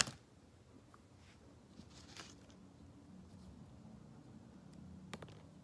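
Faint handling noises of hand tools being picked up: a sharp click at the start, a few soft rustles and knocks, and another click about five seconds in, over a faint low hum.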